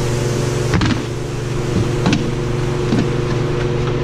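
A machine runs with a steady, even hum, while a plastic storage bin and the spray cans in it knock a few times as it is handled.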